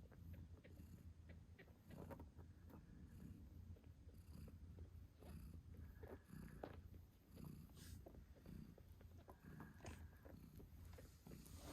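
British shorthair mother cat purring faintly and steadily, with small clicks over the low rumble.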